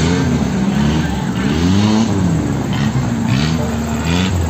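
Off-road 4x4's engine revving up and down several times under load as the vehicle crawls over rocks.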